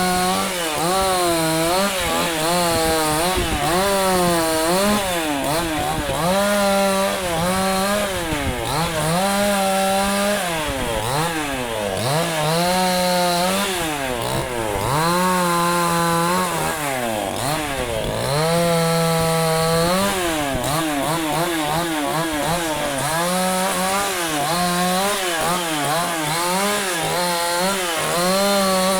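Dnipro-M two-stroke petrol chainsaw cutting walnut wood, the engine pitch rising and falling over and over as the chain loads and frees in the cut, sinking lowest twice near the middle.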